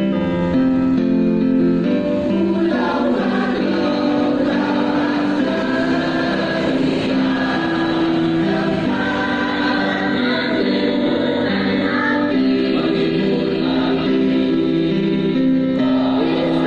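Children's school choir of junior-high students singing in parts, with a keyboard accompanying. The keyboard plays alone for the first few seconds before the voices come in.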